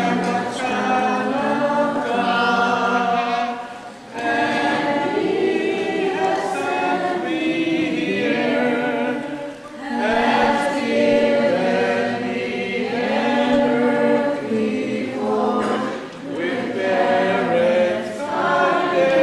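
A group of voices singing together in harmony, in long phrases with brief breaks every few seconds.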